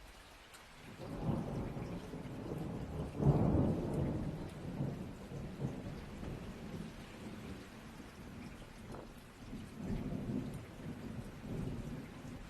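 Thunder rumbling over steady rain: a deep roll builds about a second in, is loudest around three seconds, fades, then swells again near the end.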